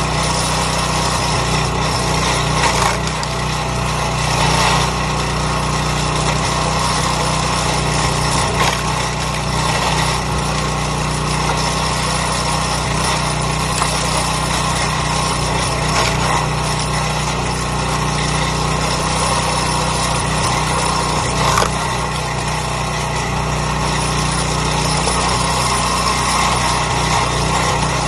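Small gas engine running steadily, with a few short sharp knocks over it.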